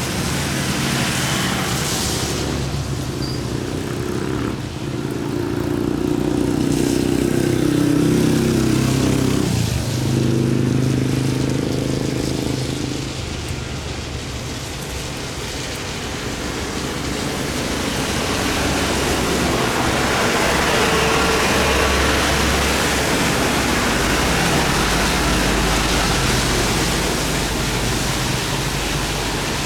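Road-vehicle engines running close by, then a rushing jet-engine roar with a low rumble that builds from about halfway through, from an airliner passing near the spotting spot.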